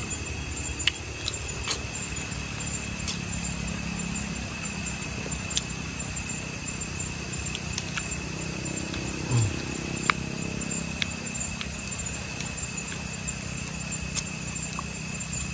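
Eating sounds: a man picking grilled fish off the bones by hand and chewing, heard as scattered small clicks and smacks. Under it runs a steady high drone like night insects.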